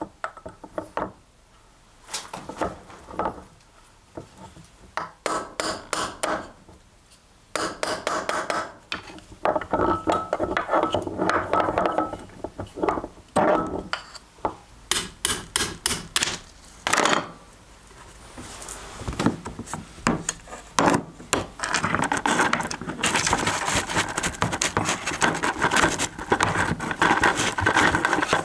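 Hammer tapping a steel pin punch in runs of quick, sharp strikes, driving out the pin that holds the bevel pinion of an old hand drill. Loose steel parts then clink and rattle densely, with no pause between sounds, near the end.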